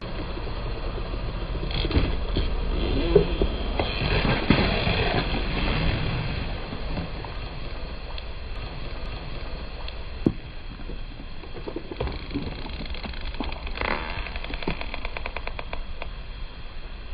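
Car engine running low as the car rolls over objects, with scattered sharp crunches and pops as they are crushed, the loudest about three seconds in and about ten seconds in.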